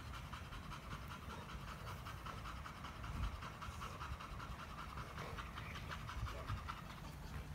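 Dogs panting quickly and rhythmically while two pit bull-type dogs play-wrestle on the grass.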